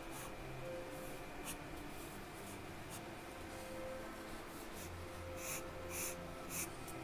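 Charcoal pencil scratching on drawing paper in short strokes, a few spread out and three stronger ones close together near the end, over a faint steady hum.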